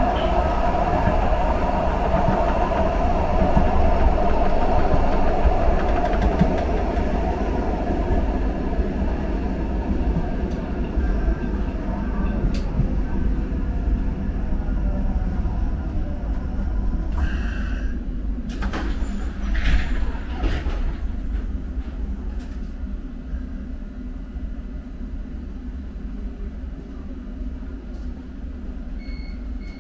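Subway train running, a steady rumble with a whine that fades out, the whole sound gradually growing quieter, with a few clatters midway. Short repeated electronic beeps start near the end.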